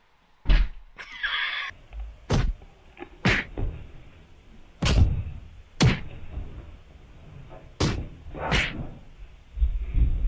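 A series of dull thunks and knocks, about seven, spaced irregularly a second or so apart, from cats scuffling on and around a wooden bar stool.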